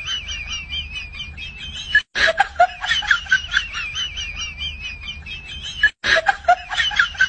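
A short high-pitched comedy sound clip of quick chirpy, giggle-like pulses over a wavering whistly tone, played in a loop. It cuts off abruptly and restarts about two seconds in and again near six seconds.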